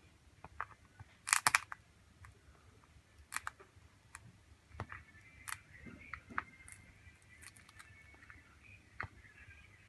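Small hand tools clicking and tapping against a phone's parts in irregular sharp clicks, the loudest a quick cluster of four about a second and a half in. A faint steady high whine runs through the second half.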